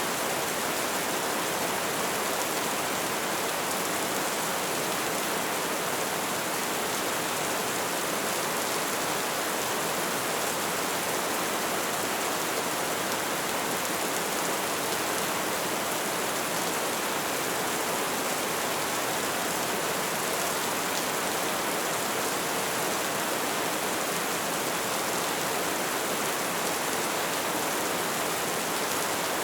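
Steady rain falling: a continuous, even hiss of many drops with no distinct single sounds.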